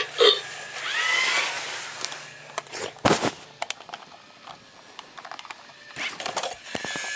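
Robosapien-type toy robots' small motors and plastic gears whirring and clicking as they move, with short electronic chirps about a second in and sharp clicks around the middle.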